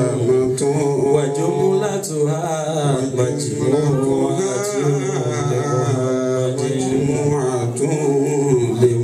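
A man chanting a devotional song into a microphone, his voice amplified through a PA, with steady held low tones underneath.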